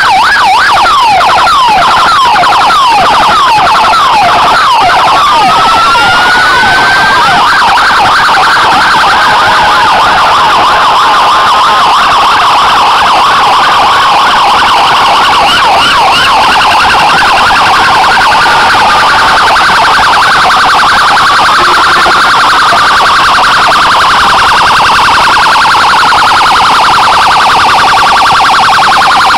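Several emergency-vehicle sirens from police and ambulance vehicles sounding together, loud and overlapping. Fast yelping sweeps come first, with a slower rising wail about six seconds in, and the sirens then run on as a dense, steady warble.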